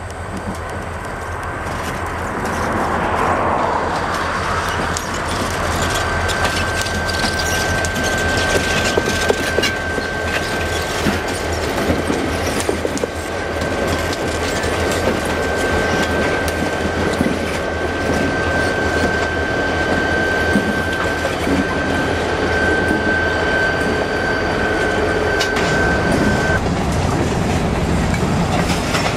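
EMD F-unit diesel locomotives leading a freight train pass close by with engines running, followed by the rumble and clickety-clack of the freight cars rolling over the rail joints, growing louder over the first few seconds. A steady high-pitched squeal runs from about six seconds in until shortly before the end.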